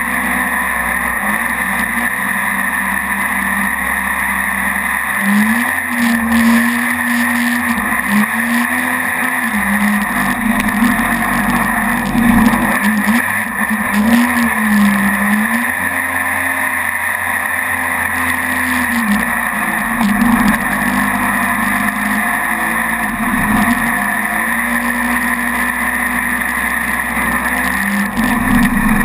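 Mini jet boat's engine running at speed, its pitch rising and falling again and again as the revs change, over a steady rushing of water and air.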